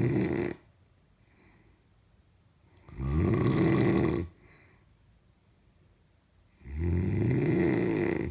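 Loud snoring: three long snores about three and a half seconds apart, each rising in pitch as it goes.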